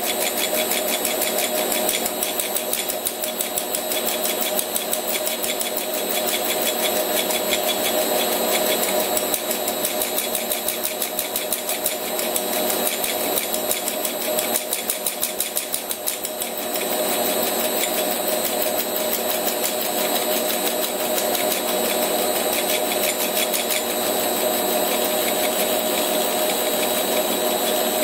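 Gear hob on a Rivett 608 lathe cutting a 15-tooth Delrin gear blank, with the stepper motor and belt drive turning the blank. The machine runs with a steady hum and a fast, even pulsing. About two-thirds of the way in the pulsing fades and the running becomes smoother.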